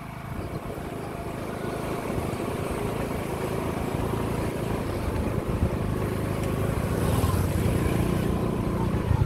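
Steady low rumble of a motorbike engine under way, growing gradually louder.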